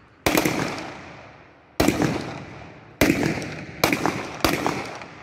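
Police rifles fired skyward in a ceremonial volley salute: five sharp reports, some slightly ragged, each fading in a long echoing tail, the last three coming closer together.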